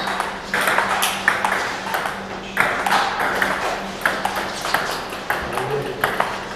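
Table tennis rally: the ball clicking sharply off the paddles and the table in a steady run of short ticks, two or three a second.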